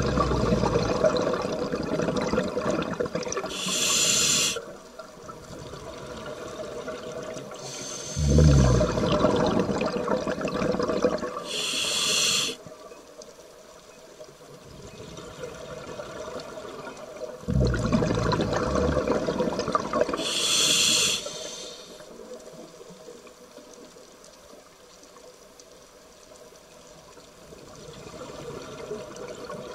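Scuba diver's regulator breathing underwater: three breaths about nine seconds apart, each a few seconds of rushing exhaust bubbles ending in a short hiss, with a faint steady water hiss between them.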